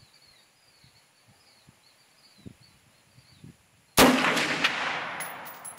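A single AR-15 rifle shot about four seconds in: one sharp, loud crack followed by a long echoing decay.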